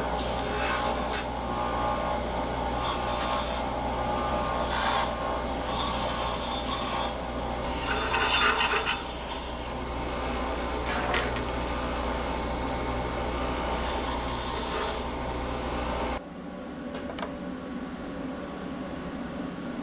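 An electric power tool cutting or grinding small pieces of 1x1 steel stock. The motor runs steadily, with repeated one-second bursts of harsh, hissing contact as it bites the metal. The motor cuts off about 16 seconds in, leaving a few faint clicks and handling sounds.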